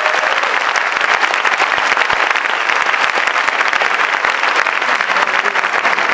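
Theatre audience applauding steadily: dense, sustained clapping from a large crowd.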